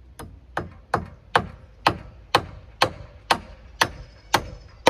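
A hammer striking wood in a steady run of blows, about two a second, eleven in a row, the first couple lighter.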